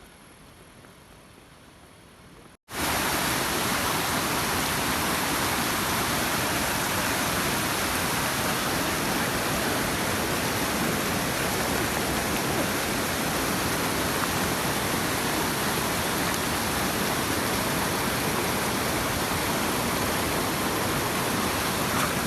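Faint background hiss, then a sudden cut about two and a half seconds in to the loud, steady rush of fast-flowing water, a hill stream running in spate.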